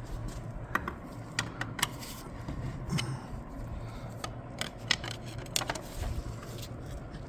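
Scattered light metal clicks and clinks of transmission internals being handled, clutch plates, steels and planetary parts knocking together as they are pulled from a heat-damaged Allison clutch pack, over a faint steady low hum.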